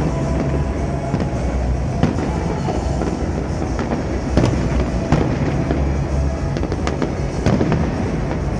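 Fireworks display: shells bursting continuously over a dense low rumble, with a few sharper bangs standing out, about two, four and a half, five and seven and a half seconds in. Music plays underneath.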